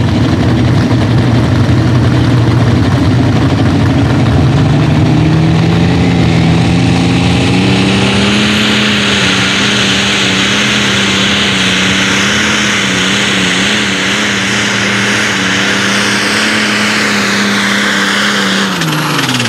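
Case IH light limited super stock pulling tractor's engine under load. It runs at a lower note at the start, climbs in pitch over several seconds as the pull gets going, holds high with a high whine for about ten seconds, then drops off near the end as the driver lets off.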